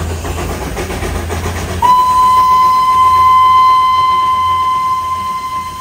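Darjeeling Himalayan Railway steam locomotive whistle giving one long, steady blast at a single high pitch, starting about two seconds in, over the low rumble of the moving train.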